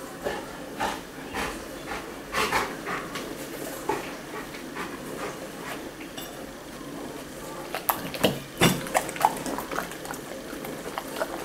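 Bernese mountain dog snatching a sausage off a plate on a kitchen table and chewing it: scattered short wet mouth clicks and smacks, with knocks of its muzzle and paws against the plate and tabletop, busiest and loudest about eight seconds in.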